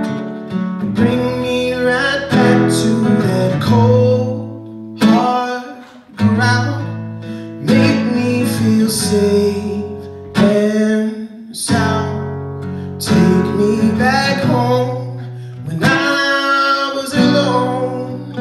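A man singing a song while strumming an acoustic guitar, with sharp accented chord strums every second or few seconds.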